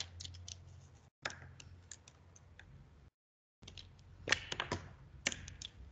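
Irregular light clicks and taps at close range, busiest about four to five seconds in, over a faint low hum.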